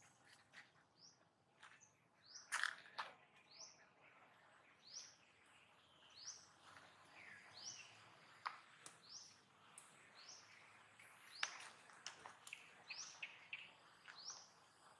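A bird calling over and over, faintly: short, high chirps that rise and fall, about one a second, with a few sharp clicks in between.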